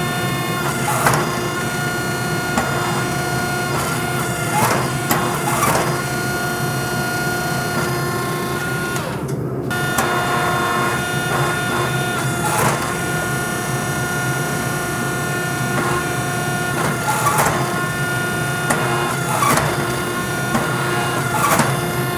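Hammer striking hot coil-spring steel on an anvil, nine or so sharp ringing blows spaced a second or more apart, forging a knife tang over the steady hum of a forge blower.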